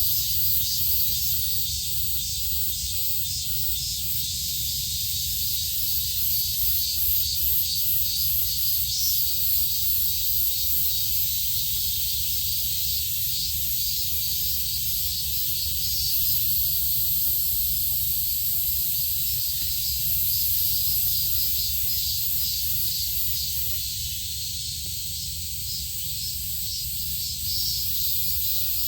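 A chorus of insects, likely cicadas or crickets, making a steady high shrill hiss with fine pulsing, over a low steady rumble.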